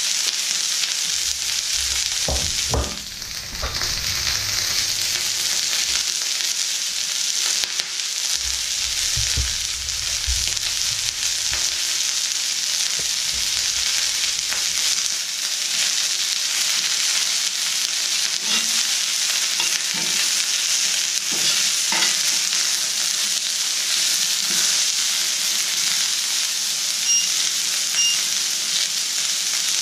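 Sliced onions frying in a pan with a steady sizzle. Knocks and scrapes of handling come through in the first half.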